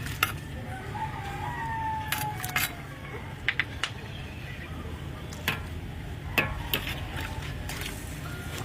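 A rooster crows once, about a second in, over a steady low rumble, with several sharp clicks or knocks scattered through.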